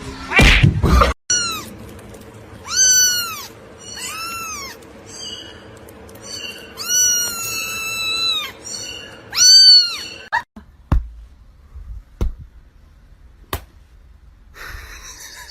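A cat meowing repeatedly, about six meows, one of them long and drawn out. A loud thump comes just before the first meow, and a few short knocks follow after the meowing stops.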